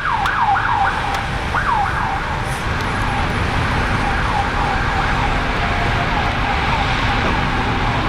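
Emergency vehicle siren sounding from the street, its pitch sweeping quickly down and up several times in the first two seconds, then cycling more slowly, over a steady low rumble.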